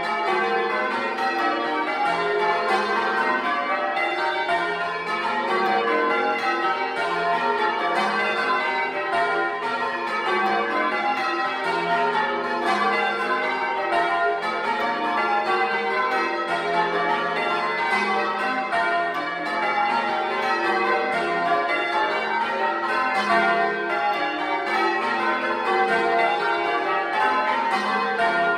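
A ring of ten church bells, tenor of about 17 cwt in F, being change-rung to Grandsire Caters, heard up close in the bell chamber: a steady, unbroken run of overlapping bell strikes with long ringing tails.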